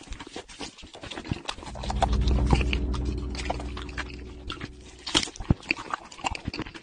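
Exaggerated eating sounds: irregular chewing, smacking and wet clicks. A low, drawn-out hum underlies them from about two seconds in to about four and a half seconds in.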